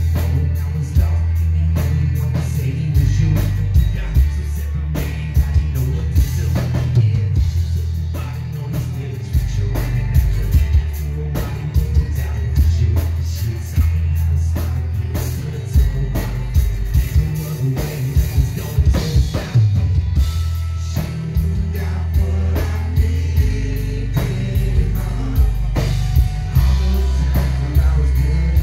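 Live band performance: a singer over drums, a heavy bass and an acoustic guitar. The mix is loud and bass-heavy.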